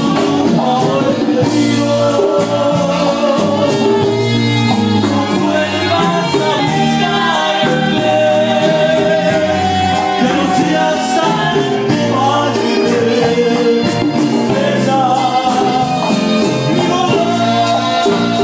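Live Latin dance band playing: saxophones, keyboard, timbales and drum kit over a steady beat kept by a metal güiro, with a male lead singer singing into a microphone.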